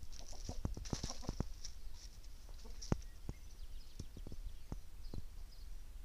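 Chickens pecking at stony ground: a string of sharp taps, quick at first and then spaced about half a second apart, with soft clucking from the flock.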